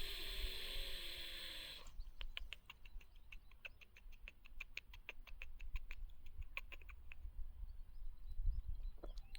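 Black francolin calling: a harsh, rasping note lasting about two seconds, then a quick run of short, clicking notes, about five a second, that thins out and stops about seven seconds in.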